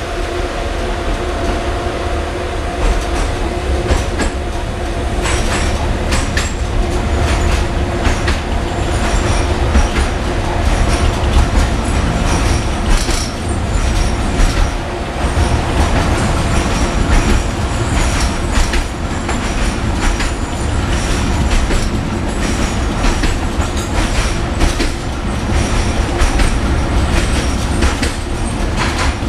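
Tatra T4D and B4D tram set running along the track, heard from inside a passenger car: a low rumble with a steady hum, and frequent clatter and knocks from the wheels on the rails.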